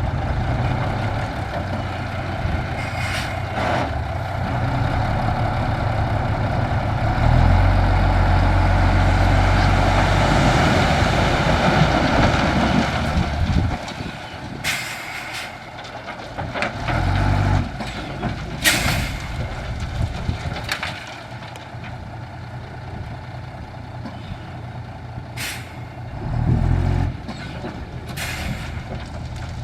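Heavy dump truck's diesel engine running under load, louder for several seconds in the first half, then settling lower. Several short, sharp hisses of air from the air brakes follow in the second half.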